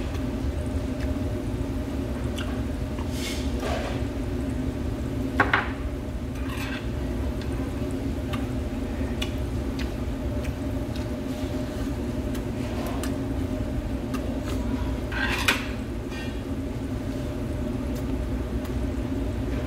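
Metal chopsticks and tableware clinking now and then against dishes, with two sharper clinks about five and fifteen seconds in, over a steady low hum.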